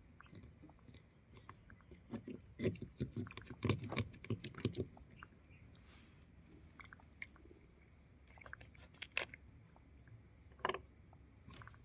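Close handling noises: a dense run of quick crackling clicks and rustles a couple of seconds in, then a few scattered single clicks, as the hooked spiny eel is handled.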